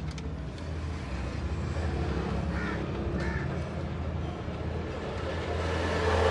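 An engine running steadily with a low hum, with two short higher-pitched calls, like a crow's caws, about two and a half and three seconds in.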